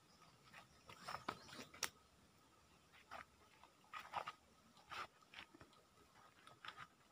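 Faint, scattered crackles and rustles of dry leaf litter and brittle tamarind pods being handled, in short clusters about a second apart.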